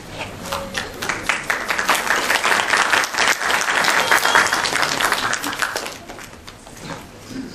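Audience applauding: scattered claps at first, filling out into full applause within a couple of seconds and dying away about six seconds in.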